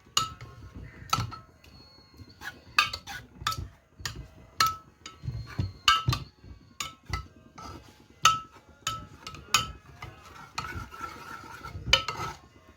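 A metal utensil clinking and scraping against a metal cooking pot as cooked dal is mashed and stirred, in irregular sharp, ringing knocks about one or two a second.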